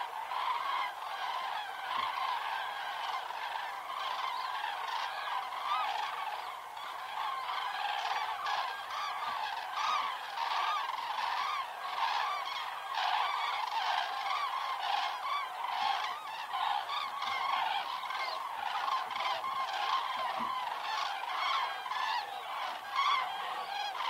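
A flock of common cranes calling in flight, many loud trumpeting calls overlapping without a break.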